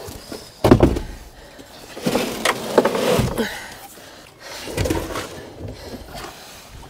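Knocks and clatter of rubbish being loaded into the back of a van, in three bursts.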